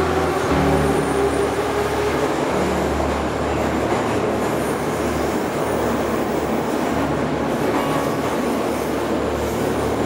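Moscow Metro train running between stations, heard from inside the carriage: a steady, loud noise of wheels on rail and running gear, with a steady pitched tone in the first second or two.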